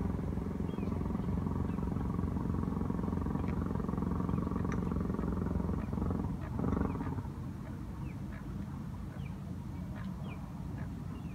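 A low, steady engine drone that swells about six to seven seconds in and then drops away, with small birds giving short chirps throughout.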